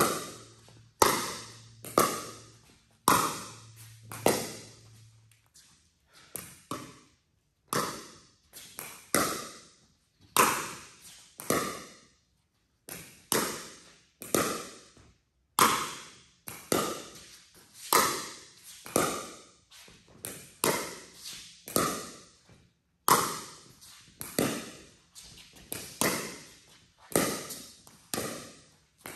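Pickleball rally with Paddletek Tempest paddles: sharp pops of the plastic ball off the paddle faces and bounces on the court, about one a second, each with an echoing tail in the large indoor hall.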